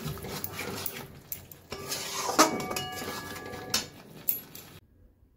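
A utensil stirring thick chicken curry in a metal pan, scraping and clinking against the pan with short metallic rings, as the butter and garam masala are mixed in. The stirring stops near the end.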